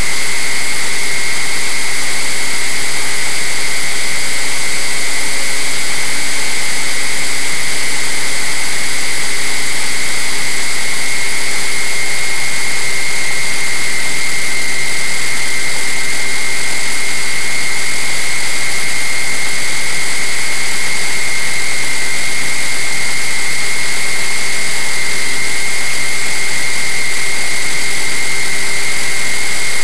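Motor and propeller of a radio-controlled flying wing running at a steady throttle in flight, heard through a camera mounted on the wing. A steady high whine sits over a constant rush of wind noise.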